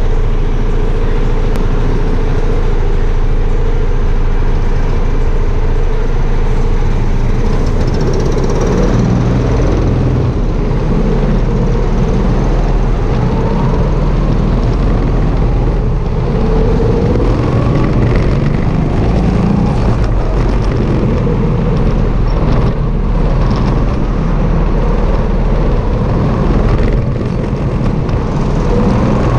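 Sodi RT8 rental go-kart engines, single-cylinder four-strokes, idle steadily while queued. About eight seconds in, the kart pulls away and its engine note rises and falls as the revs change through the laps. It is picked up close from a mount on the kart itself.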